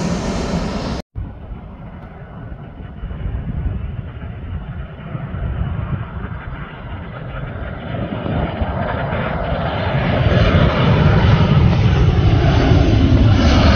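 Jet airliner engines. A loud airliner passing low overhead cuts off abruptly about a second in. Then a second narrow-body twin-jet airliner, approaching to land with its gear down, is heard faint at first and grows steadily louder as it nears.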